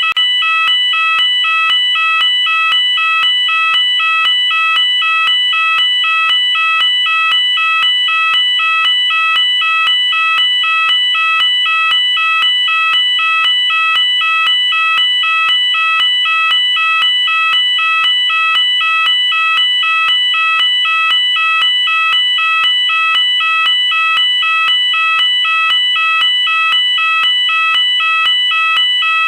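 UK electronic fire alarm sounder going off continuously: a loud two-tone signal alternating between two pitches about twice a second, without a break.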